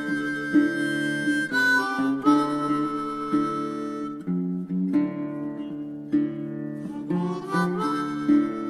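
Background music: harmonica over acoustic guitar, held notes and chords changing every half second or so.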